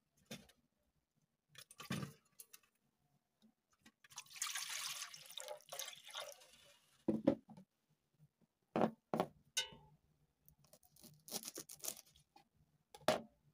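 Water poured from a plastic jug into a large metal bowl for about three seconds, then several sharp knocks and softer handling and rustling sounds as a bunch of fresh coriander is picked up and cut with a knife on the counter.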